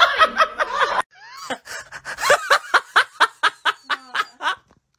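A person laughing in a quick run of short pitched bursts, about four a second, that stops shortly before the end. Just before it, at a cut in the audio about a second in, a moment of speech and laughter from another clip breaks off.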